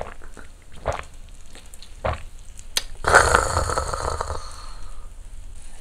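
Marinated pork neck galbi sizzling on a small tabletop charcoal grill, with a few small clicks early on and a louder hiss about three seconds in that fades over a second or two.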